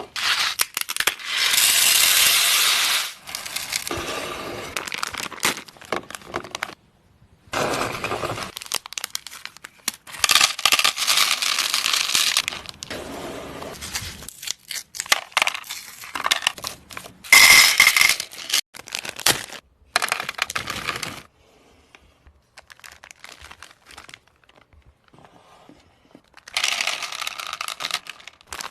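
Sweets' plastic wrappers being crinkled and torn open, in several bouts with short pauses and a quieter stretch a little past the middle.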